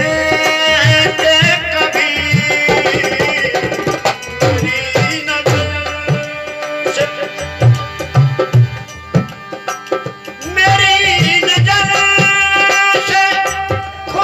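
Ghazal sung by a male voice to harmonium and dholak accompaniment. The voice drops out for several seconds midway while the harmonium and drum carry on, then comes back in near the end.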